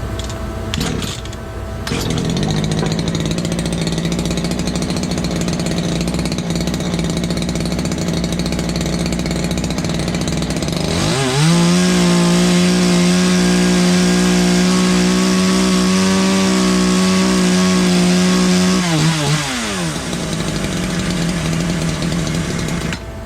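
Ported, custom-exhaust Poulan Predator two-stroke chainsaw running while its carburetor is being tuned. About eleven seconds in it is revved to wide-open throttle and held steady for about eight seconds, then drops back.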